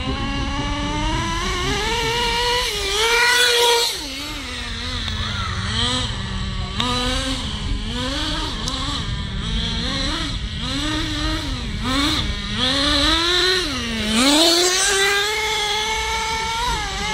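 Tornado S30's small, high-revving engine being run in during break-in, its pitch climbing and dropping over and over as the throttle is blipped. It revs highest twice, about three seconds in and again near the end.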